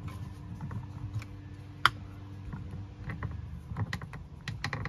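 Small scattered clicks and ticks of a T20 Torx screwdriver backing a screw out of a plastic rear-view mirror mount, with hands handling the mount. One sharper click comes about two seconds in, and a quick run of clicks comes near the end.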